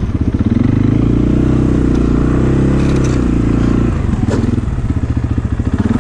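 ATV engine running under load in deep snow, its note rising and falling, with wheels slipping for grip. About four seconds in, the engine settles into a slower pulsing chug.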